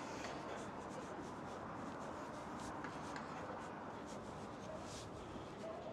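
Faint steady town-street background with light, irregular scuffing of footsteps on paving slabs.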